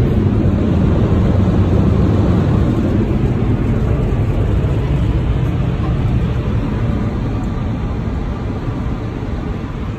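Steady low rumble and hiss of a car heard from inside the cabin as it drives off, slowly getting quieter.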